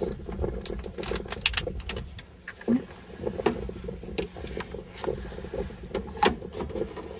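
Clicks and light clatter as a plate of food is slid into a countertop microwave oven and its door is pushed shut near the end, over a steady low hum.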